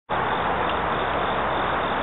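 Steady, even rushing noise of outdoor background at a railway platform, with no distinct events or tones.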